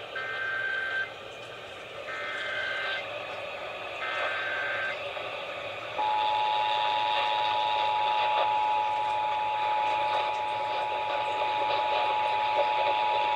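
Emergency Alert System tones received on a broadcast radio over static: three short bursts of SAME digital header data, each about a second long with a second's gap between, then about six seconds in the steady two-tone attention signal starts and holds to the end. The tones open an alert, here a Required Monthly Test.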